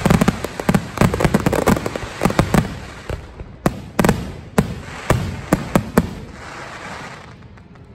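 Aerial fireworks going off: a dense, rapid run of bangs and crackling for the first few seconds, thinning to a string of single sharp reports a fraction of a second apart, then dying away near the end.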